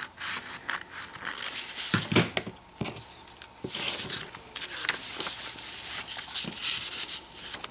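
Printed paper pattern sheets rustling and crinkling as they are handled and joined with clear tape, with a few light knocks about two to four seconds in.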